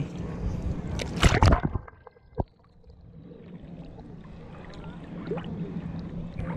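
Surf water sloshing and splashing against a waterproof action camera held at the waterline, loud for the first two seconds, then dropping suddenly to a faint muffled wash with a single click.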